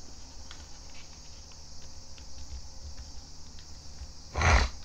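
Origami paper being handled and folded on a table: faint light crinkles and ticks of the paper, then one brief louder rustle and thump about four and a half seconds in as the fold is pressed down.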